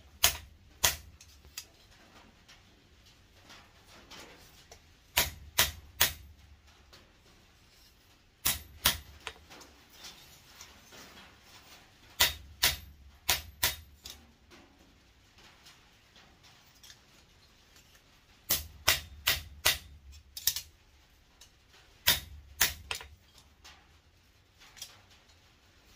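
Hammer tapping the steel reins of a small pair of blacksmith's tongs on an anvil, straightening the reins so they no longer cross over each other. The sharp strikes come in short groups of three to six, with pauses of a few seconds between groups.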